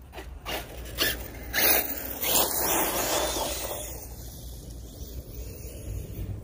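Electric RC monster truck running across grass and dirt: a few quick knocks in the first second and a half, then a swell of motor and tyre noise as it passes close, throwing up dirt, fading after about three and a half seconds.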